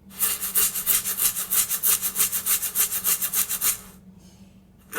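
A rapid back-and-forth rasping, about six strokes a second, that stops about three and a half seconds in.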